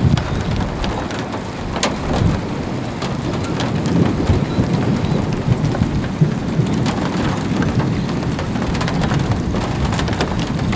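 Rain falling on a car, with many sharp drop ticks over a steady low rumble.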